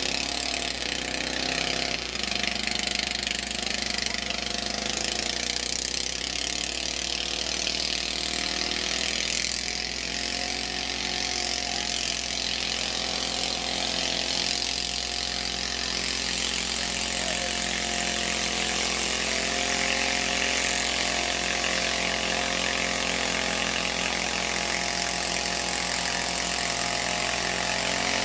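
Engine of a modified garden pulling tractor running loudly and steadily, its pitch rising briefly about ten seconds in.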